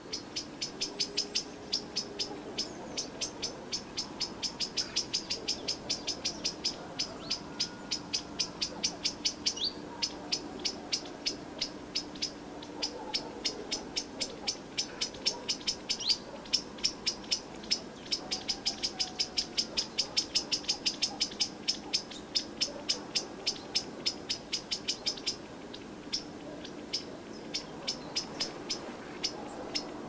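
Rhythmic high-pitched chirping, about four short chirps a second, pausing briefly a few times, over a faint low hum.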